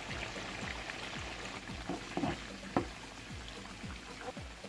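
Spice-coated ripe plantain pieces frying in hot oil: a steady sizzle with fine crackling, with a few sharp clicks about two to three seconds in. Faint background music with a thudding beat underneath.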